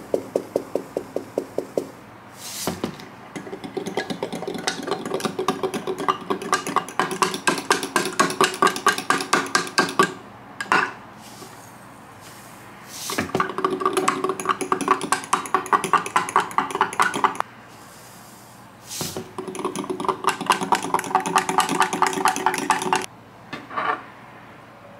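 A metal spoon stirring quickly in a glass jar, clinking against the glass several times a second in four spells with short pauses between, as chia seeds are mixed into coconut milk.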